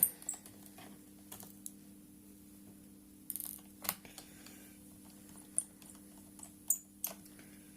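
Irregular small clicks and taps of a screwdriver unscrewing the tiny hard-drive screws in a laptop's base, over a faint steady hum.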